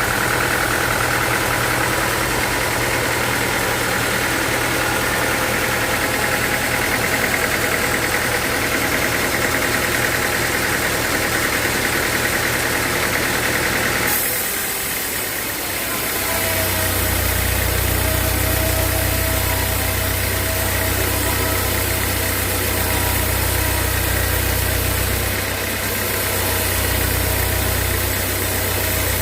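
Sawmill machinery running steadily, an engine-like drone. About halfway through, the sound changes abruptly and a deeper steady hum takes over.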